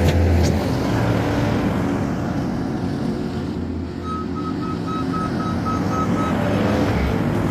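New Holland C232 compact track loader's diesel engine running steadily as it works. Its reversing alarm beeps rapidly for about two seconds in the middle.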